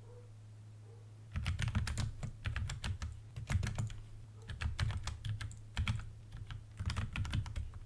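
Typing on a computer keyboard: runs of quick keystrokes starting about a second in, broken by short pauses. A steady low hum sits underneath.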